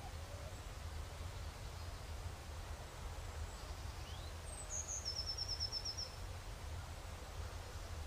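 Outdoor ambience with a steady low rumble. About five seconds in, a small songbird sings a high falling note followed by a quick trill of about eight notes.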